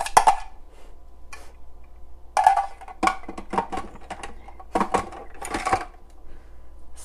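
Hard plastic parts of a food processor clicking and knocking together as the feed chute and pusher are fitted onto the bowl's lid: a string of sharp clacks, some in quick runs.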